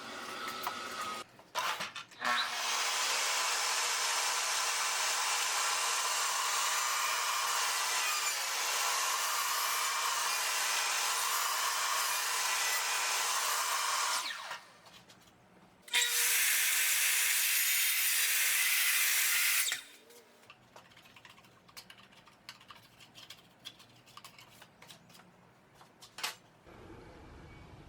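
A power tool running steadily in two stretches, a long one of about twelve seconds and a shorter one of about four, each cutting off abruptly, followed by light clicks and handling noise.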